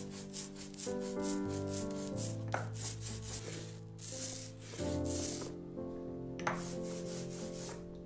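Hard rubber brayer rolled back and forth through tacky relief ink on a glass plate, a hissing, crackling rub with each pass: quick short strokes at first, then a few longer ones. Soft background music underneath.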